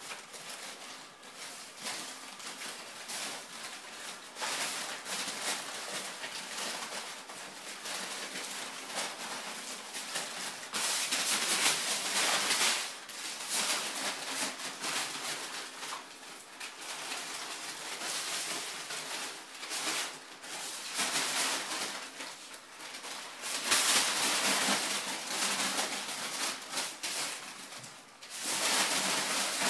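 Brown kraft packing paper rustling and crinkling as kittens pounce on and tunnel through it. It comes in irregular flurries, with louder stretches around the middle and near the end.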